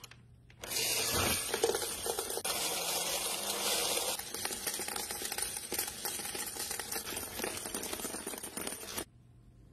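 Electric coin counting machine starting up and running as a load of coins spins through it, a dense clattering of coins against its mechanism with many fine clicks; it stops suddenly near the end.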